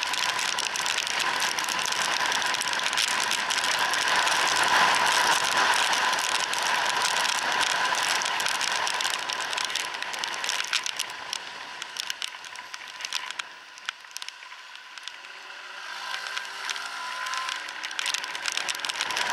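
Wind and rain noise heard from inside a motorcycle helmet on a moving scooter in heavy rain, with many scattered ticks of raindrops striking. The noise eases off about two thirds of the way in as the scooter slows, then a pitched engine note rises near the end.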